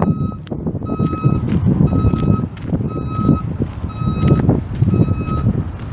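Vehicle backup alarm beeping about once a second, five even beeps, over a loud low rumble.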